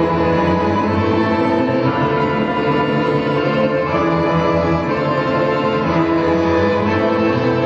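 Orchestral music led by bowed low strings such as cello and double bass, playing long held notes at an even level.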